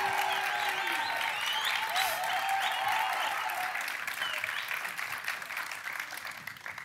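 Studio audience applauding and cheering, with scattered whoops over the clapping, dying away over the last couple of seconds.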